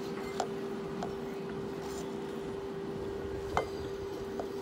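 A steady machine hum with a few light clicks of fingers and food against a glass plate while eating by hand; the loudest click comes about three and a half seconds in.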